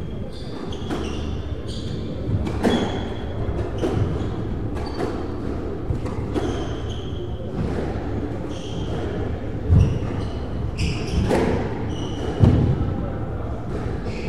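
Squash rally in a reverberant court: the ball cracks off the rackets and walls every second or so while rubber-soled court shoes squeak briefly on the wooden floor. Two heavier low thuds stand out near the end.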